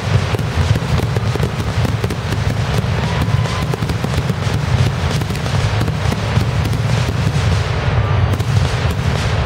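Aerial fireworks shells bursting in a rapid barrage: deep booms overlap continuously with many sharp cracks and crackling.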